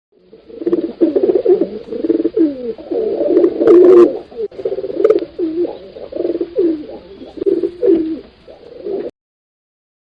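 Pigeons cooing: low, warbling calls repeated almost without a break, cutting off suddenly near the end.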